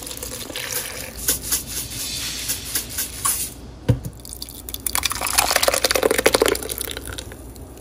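Liquid pouring and splashing, with small clicks and a sharp knock about four seconds in. A louder, fuller run of pouring lasts about two seconds near the end.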